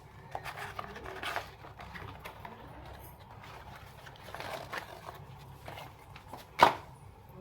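Scattered clicks and rustles of parts being handled, with one sharp knock about six and a half seconds in.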